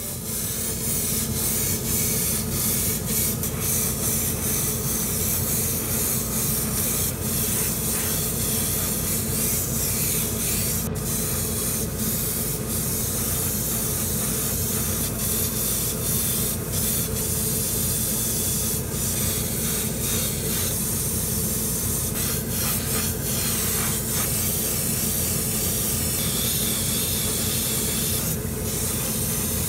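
Airbrush spraying paint onto plastic model-car parts: a steady hiss over a constant low machine hum.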